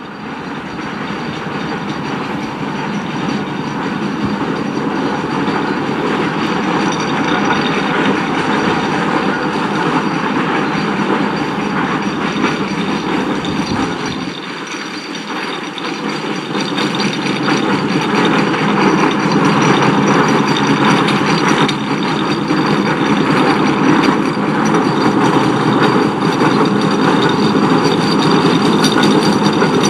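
Ruston Proctor steam traction engine running along the road towing a trailer, growing louder as it draws near, with a short dip about halfway before it comes close.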